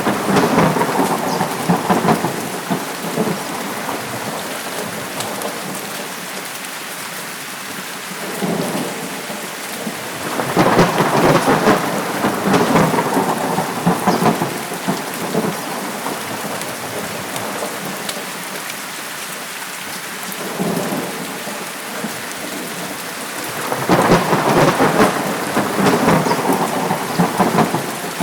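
Steady heavy rain with thunder rolling in at intervals: a roll fading at the start, a long one swelling about ten seconds in, and another near the end.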